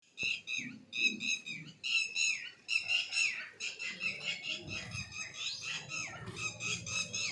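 Birds calling in quick runs of short, harsh, repeated notes, several a second, some notes dropping in pitch at their ends.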